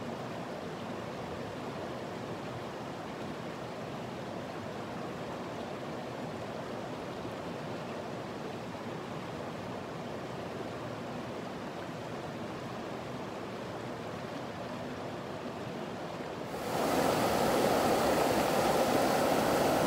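Steady rush of the South Yuba River's flowing water. Near the end it turns abruptly louder and brighter.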